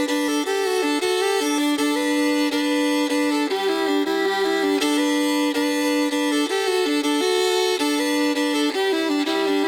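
Fiddle playing a slow, sustained melody over accompanying chords, with no drums, in a song's instrumental outro.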